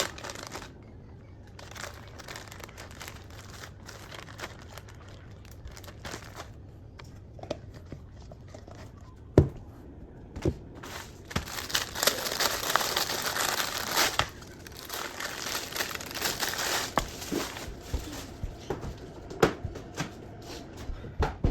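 Plastic packaging being handled and crinkling, in scattered bits and then in a longer spell a little past halfway. A few sharp knocks are mixed in, the loudest about nine seconds in.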